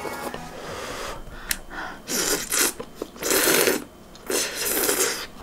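A person slurping ramen noodles: three loud slurps, each under a second long, starting about two seconds in, after a light click.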